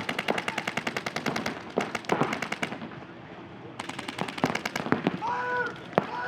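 Electronic paintball markers firing rapid strings of shots, a dense fast rattle from several guns at once that breaks off a little under three seconds in, then resumes about a second later.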